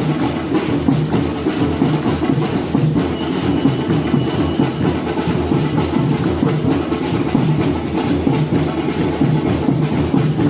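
Batucada percussion ensemble drumming a dense, steady samba rhythm, the deep drums loudest.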